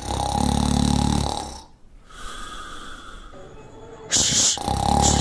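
A person snoring loudly: two long snores about two seconds apart, with a quieter breath in between.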